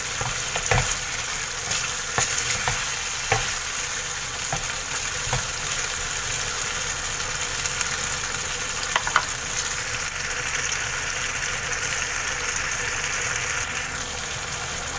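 Tuna frying in butter and oil in a pan, with a steady sizzle as it begins to brown, and a few light clicks scattered through.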